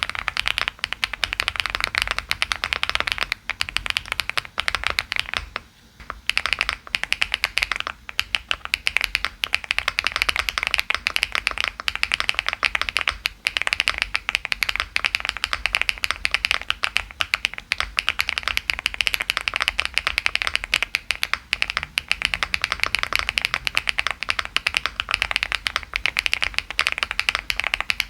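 Fast, continuous typing on a 75% hot-swappable mechanical keyboard with double-shot PBT keycaps: a dense run of keystroke clicks, with a short pause about six seconds in.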